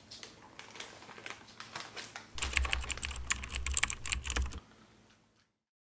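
Shiba Inu chewing a crunchy treat: a rapid run of crisp crunching clicks, thickening and louder from about two and a half seconds in, stopping at about four and a half seconds.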